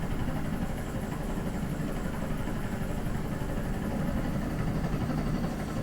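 Movie soundtrack effect played through a home-theater surround system: a steady low engine-like rumble that may be panning around the room overhead.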